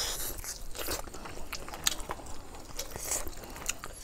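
Close-up eating sounds: biting into and chewing a grilled chicken wing, with scattered sharp crunchy clicks, the loudest about two seconds in.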